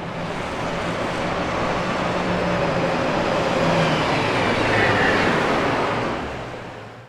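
A bus driving past: its engine and road noise grow louder to a peak about five seconds in, the engine note dropping slightly in pitch as it passes, then fade away.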